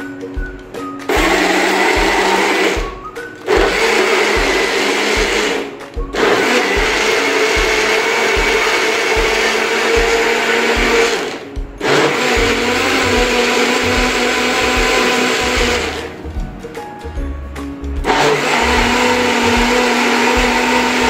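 Small personal bottle blender running on chopped fruit and water, in several runs of a few seconds each with short pauses between them.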